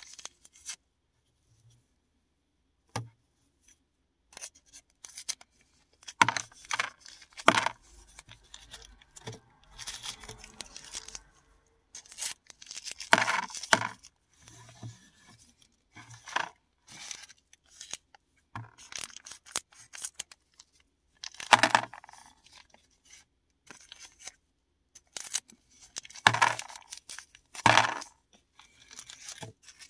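Plastic and paper packaging of paradichlorobenzene mothballs being torn open and handled, in irregular crackling tears with sharp clicks of the tablets. A lone click comes a few seconds in, and the handling starts about six seconds in.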